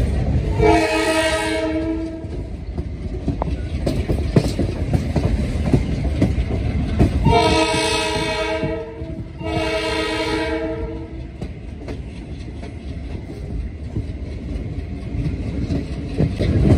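Train horn sounding three times: one blast, then about five seconds later two longer blasts in quick succession, each a chord of several steady tones. Under the horn runs the steady rumble and clickety-clack of the coach's wheels on the rails as the train gathers speed away from the station.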